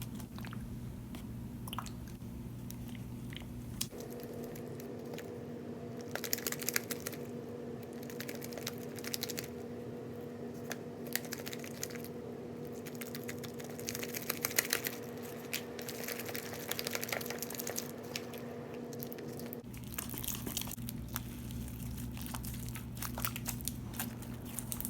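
White glue slime being mixed and worked after adding borax activator: irregular sticky crackling and squishing.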